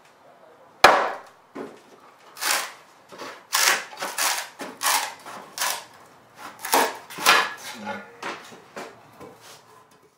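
A mallet strikes a froe into a western red cedar block with one sharp knock about a second in. A run of woody cracks and clattering knocks follows as the shake splits off and the split cedar shakes knock against each other.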